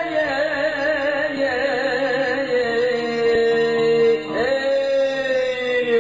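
Turkish bozlak folk song: a solo voice singing long, ornamented notes with wavering melismas. About four seconds in it slides up to a new held note.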